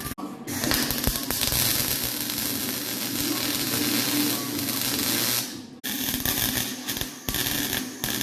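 Welding arc crackling while plug welding a sheet-metal package tray: one long continuous weld, then after a brief break a few shorter bursts with pauses between them.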